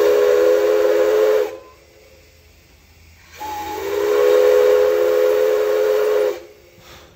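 Steam whistle of a JNR Class C11 tank locomotive sounding two blasts, a chord of a few steady tones over a hiss of steam. The first blast stops about a second and a half in; the second starts about three and a half seconds in and lasts about three seconds.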